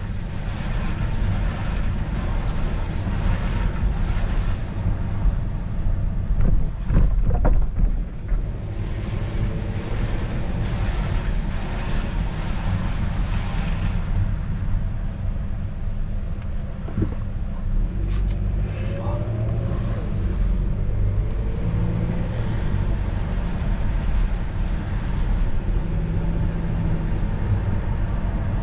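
A car driving on wet streets, heard from inside the cabin: a steady low rumble of engine and road noise under the hiss of tyres on wet pavement.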